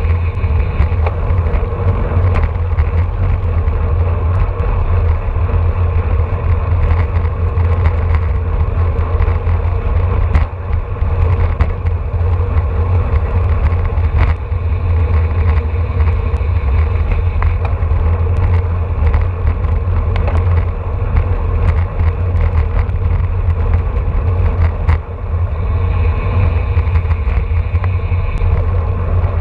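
Wind buffeting the camera microphone on a road bicycle riding in a race pack at about 25 to 29 mph, a loud, steady rumble with a steady hum over it and a few brief clicks.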